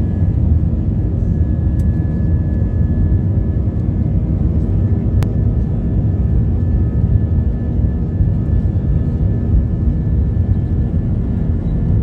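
Steady low rumble of a jet airliner's engines and airframe, heard from inside the cabin over the wing while the plane taxis, with a faint thin whine held throughout. A single sharp click comes about five seconds in.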